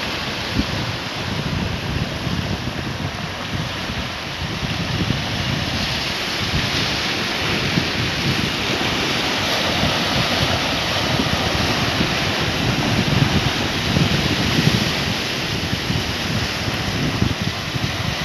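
Sea surf washing and foaming around coastal rocks in a steady rush, with wind buffeting the microphone in low, gusty rumbles.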